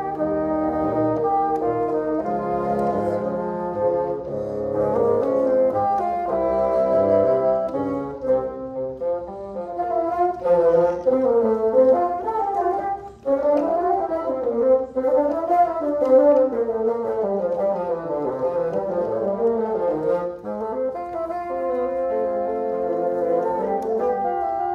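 Bassoon quartet playing: held chords in several voices at first, then, after a brief break about halfway through, quick runs that rise and fall, settling back into held chords near the end.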